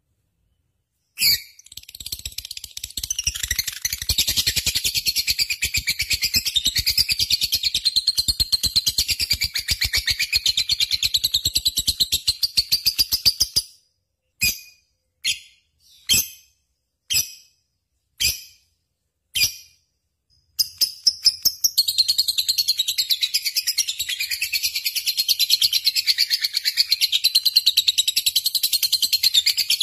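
Lovebird singing in long, rapid chattering trills. A trill of about twelve seconds breaks off into six short separate chirps, spaced about a second apart, and then a second long trill starts about twenty seconds in.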